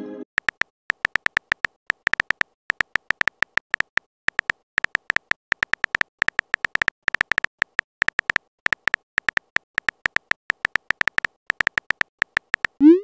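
Rapid typing clicks from a texting app's keyboard sound effect: short, crisp, irregular taps, several a second. Right at the end a rising swoosh begins, the message-sent sound.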